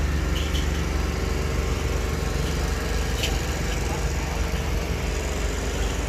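An engine running steadily with a low, even hum, and a few brief sharp high sounds over it.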